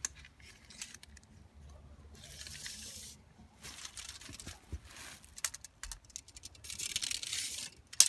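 Steel tape measure being pulled out and run along, two rattling rushes of about a second each with scattered clicks, and a sharp click near the end.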